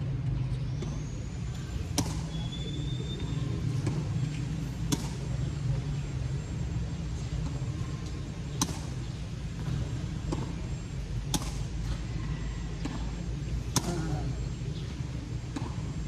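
Tennis balls struck by rackets in a rally: a sharp pop about every three seconds, five in all, over a steady low rumble.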